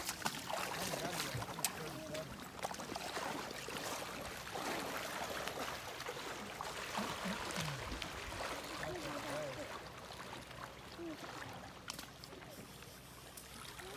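Steady rush of river water, with faint voices now and then.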